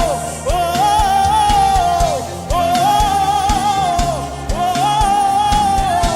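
Gospel worship music: a lead voice sings long held phrases, each rising into a sustained note about every two seconds, over a band with a steady kick-drum beat.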